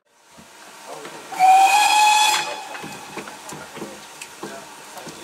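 Steam locomotive whistle: one blast about a second long, starting about a second in, its pitch rising slightly as it sounds, over the steady running noise of the train.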